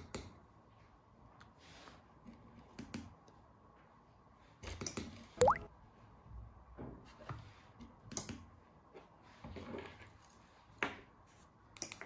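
Scattered small plastic clicks and taps as key-fob remote buttons are pressed and handled while pairing them to a small relay receiver module, the relay switching with a click. The loudest cluster comes about five seconds in, with a brief rising squeak.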